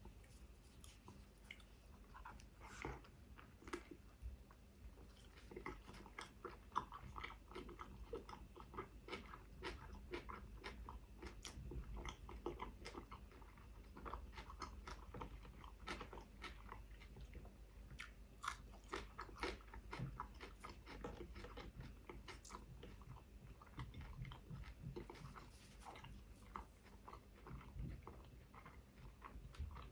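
Close-miked chewing and biting of a chicken shawarma wrap: a steady run of irregular short crunches and mouth clicks.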